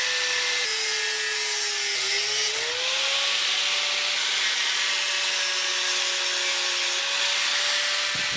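Einhell TC-AG 115 angle grinder running, its cutting disc grinding through a metal bicycle fork tube with a loud hiss over the motor's whine. The motor's pitch sags under the load about two seconds in, then climbs back.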